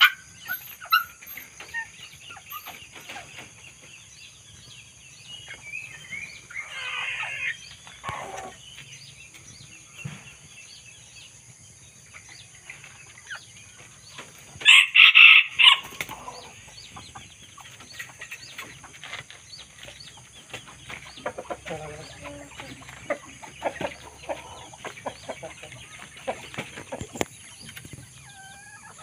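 A rooster crows twice: a falling call a few seconds in, then a shorter, louder one about halfway through. Scattered clicks and knocks and small bird calls fill the rest.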